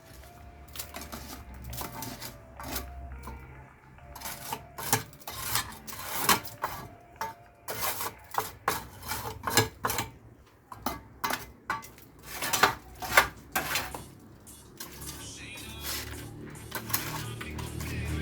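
Irregular sharp metallic clinks and knocks, many in quick succession, some briefly ringing, as hand tools strike and scrape against metal and masonry on a building site.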